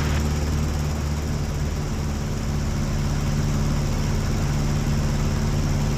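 Aeronca Chief's engine and propeller droning steadily in cruise, heard from inside the cockpit.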